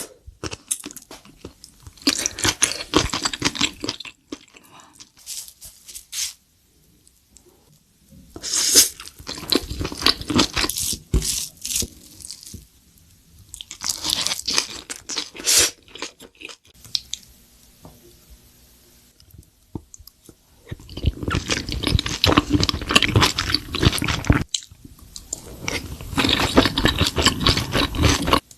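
Close-up chewing of crunchy food, in about five bouts of loud crackling crunches, each a few seconds long, with short quiet pauses between them.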